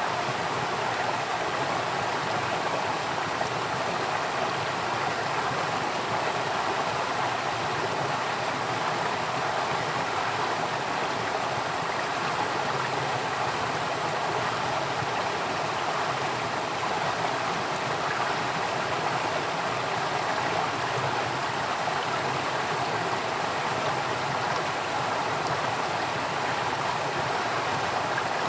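Flowing stream water running steadily, an even rushing and gurgling wash with no breaks.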